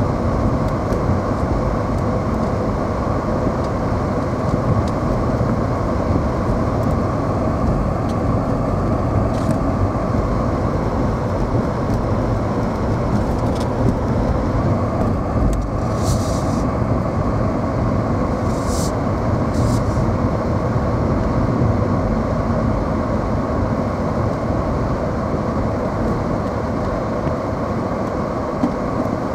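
Car driving, heard from inside the cabin: steady engine and tyre noise, with two short hissing bursts about halfway through.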